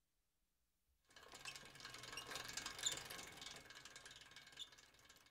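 Bicycle sound effect playing back: a run of rapid mechanical clicking and rattling that starts about a second in and fades toward the end, panned sweeping from left toward right.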